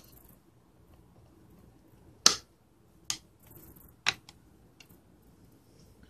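Snap-fit clips of a plastic power-bank case popping loose as the shell is pried apart: three sharp snaps, the first the loudest, about a second apart, followed by a couple of faint ticks.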